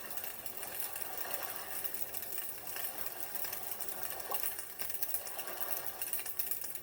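Campfire crackling: a dense, irregular stream of small pops and snaps over a steady hiss.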